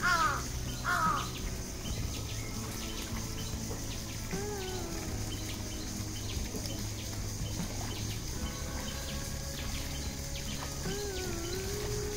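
Birds calling: two harsh calls in the first second, then a few wavering, gliding calls later on, over a steady low background hum.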